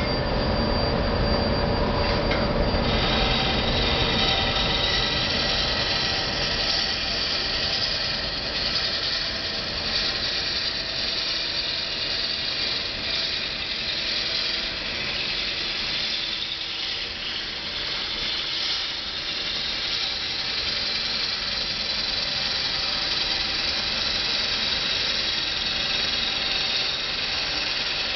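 A Robust American Beauty wood lathe spinning a large wooden bowl blank while a long-handled turning tool cuts into its face, throwing off shavings. The cutting goes on steadily and high-pitched over the lathe's running, with several held tones; the high part of the sound becomes stronger about three seconds in.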